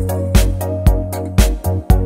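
Background music with a steady beat, about two strong hits a second over a sustained bass line and held notes.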